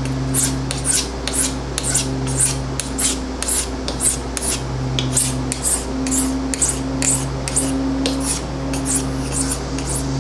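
Rhythmic hand-sanding or rasping strokes on a knife, about two strokes a second, each a short scratchy swish.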